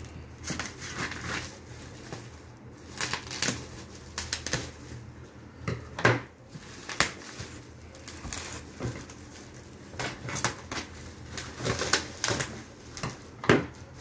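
Black plastic bubble-wrap packaging being cut with scissors and pulled off a cardboard box: irregular crinkling, rustling and crackling, with a few sharper cracks about six seconds in and near the end.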